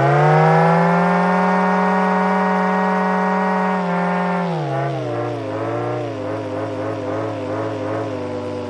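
Homemade supercharged turbine engine running at idle with a pitched hum. Its pitch rises right at the start, holds for about four seconds, drops, then wavers up and down several times before settling near the end.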